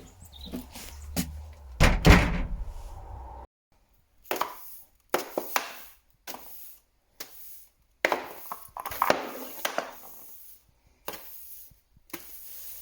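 Household knocks and thuds: a loud wooden-sounding thud about two seconds in, then a string of short separate knocks and clatters with brief silences between them.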